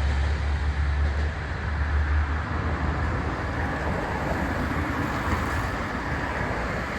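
Low rumble of a passing train fading away over the first two seconds or so, leaving steady street traffic noise.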